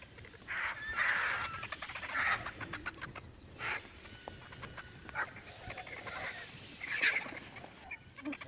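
Birds calling from a flock soaring overhead: about six short, trilled calls, spaced irregularly.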